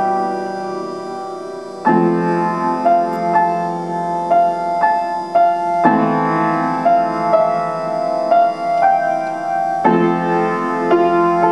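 Upright piano played slowly: a held chord fades for the first couple of seconds, then fresh chords are struck about every four seconds under a melody of single notes.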